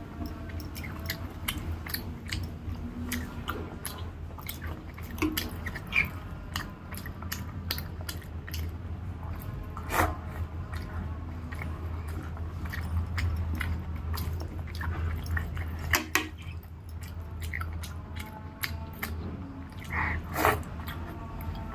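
Close-miked mouth sounds of a person eating rice, dal and curries: chewing with irregular wet clicks and smacks, over a steady low hum.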